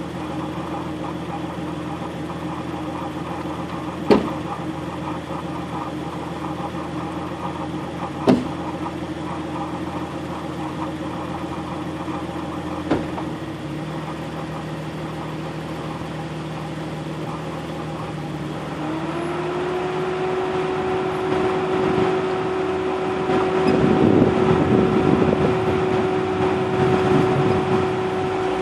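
Off-road vehicle's engine idling steadily, broken by three sharp clicks, then picking up in pitch and getting louder as the vehicle drives off along a bumpy dirt trail.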